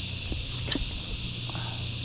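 Steady high-pitched insect drone over a low steady hum, with one short click about three-quarters of a second in.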